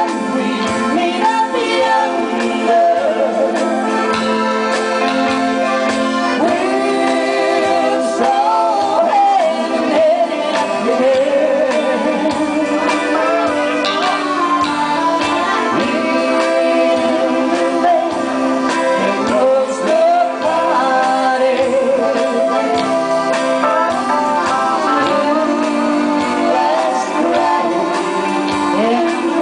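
Live country band: a woman singing a slow ballad as lead vocal over accordion and electric guitars. The sound is thin, with almost no bass.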